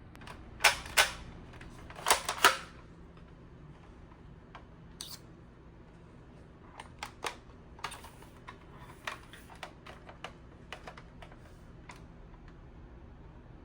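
Hard plastic clicking and clacking from handling a toy blaster. There are two pairs of sharp, louder clacks in the first three seconds, then a scatter of lighter clicks.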